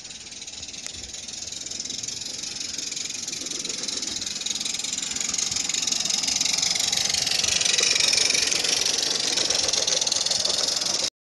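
A 16mm-scale live-steam Decauville 0-4-0 locomotive and its train running on garden-railway track: steam hiss and the rattle of wheels on rail, growing louder as the train approaches and loudest about eight seconds in as it passes.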